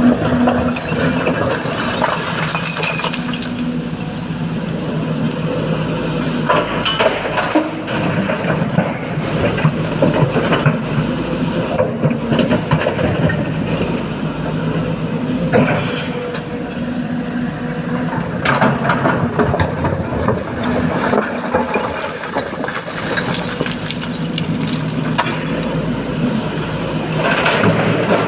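Excavator's diesel engine running steadily under work, with scattered knocks and clinks of rock being scooped and dropped into a truck bed.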